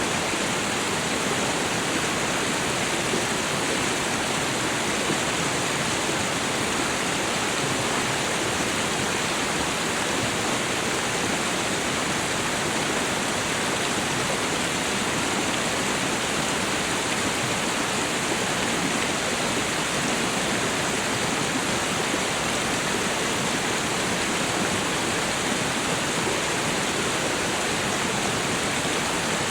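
Waterfall: water falling and rushing in a steady, unbroken roar of noise.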